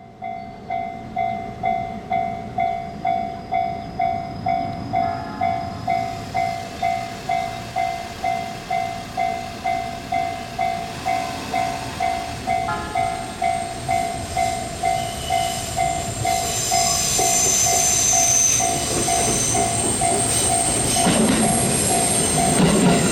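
Japanese level-crossing alarm ringing, an electronic ding repeating nearly three times a second. From about two-thirds of the way through, a train approaches: high wheel squeal and a rumble that grows louder near the end.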